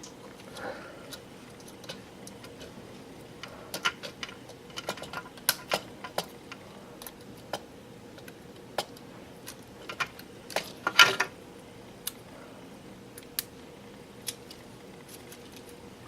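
Small plastic model-kit parts clicking and tapping as a Kadee coupler and its coupler-box cover are fitted and snapped into place on a freight car kit, with a loud cluster of clicks about eleven seconds in.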